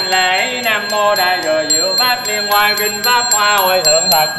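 A single voice singing a slow, melodic Buddhist chant, its pitch sliding between long held notes, over light, even strikes about four a second.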